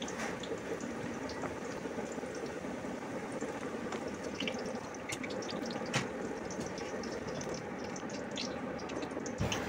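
Small boiled potatoes frying in hot oil, a steady sizzle, now fried to a light brown. A few light clicks come from the utensils against the pan, the clearest about six seconds in.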